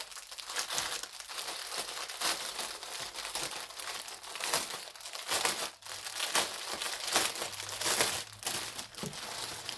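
Plastic packaging crinkling and rustling in irregular crackly bursts as it is handled and unwrapped.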